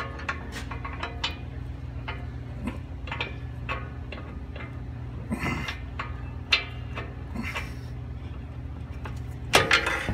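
Irregular metallic clicks and clinks of a socket and long steel extension bar working against a drum brake's shoe anchor-pin hardware, with a louder clank near the end. A steady low hum runs underneath.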